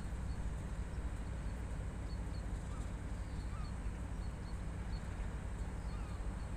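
Class 56 diesel locomotive's Ruston-Paxman V16 engine running at a steady low rumble as the loco creeps slowly forward. Small birds chirp repeatedly over it.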